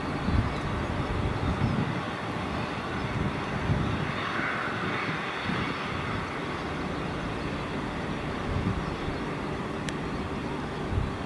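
Fairchild A-10 Thunderbolt II jets taxiing, a steady rushing whine from their twin General Electric TF34 turbofan engines that swells briefly about four seconds in, with gusts of wind on the microphone.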